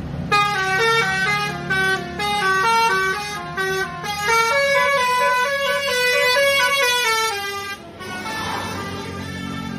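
Indonesian tour bus's multi-tone musical air horn ("telolet" horn) playing a stepping tune over the bus's running engine. The tune stops about eight seconds in, leaving the engine as the bus passes.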